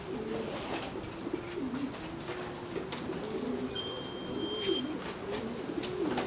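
Many racing pigeons cooing together in the loft, their overlapping low warbling calls going on without a break. A single steady high beep lasts about a second near the middle.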